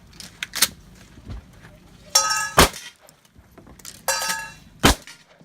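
Shooting on steel targets. A sharp crack comes about half a second in, then two bursts of ringing metal about two seconds apart, each ending in a loud sharp crack.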